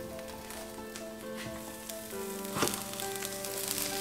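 Egg omelette sizzling steadily in a frying pan, with one sharp knock about two and a half seconds in. Soft background music plays underneath.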